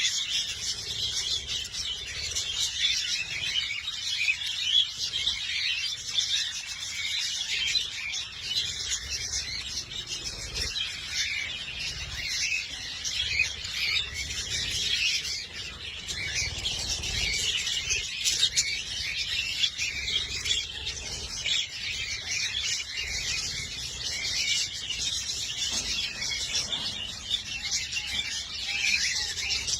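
Many small parrots chirping and twittering at once, a dense, unbroken chatter of high calls.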